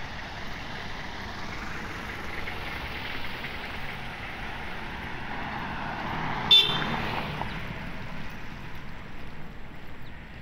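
Road traffic going by on the street, with a car passing near the middle. About six and a half seconds in comes one short horn toot, the loudest sound.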